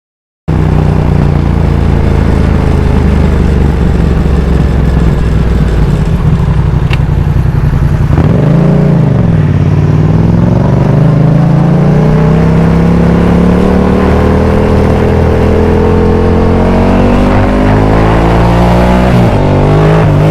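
Yamaha MT-07 parallel-twin engine through an Arrow aftermarket exhaust, running at low revs. About eight seconds in comes a quick throttle blip up and back down, then a long, slow climb in revs, broken briefly near the end by a gear change.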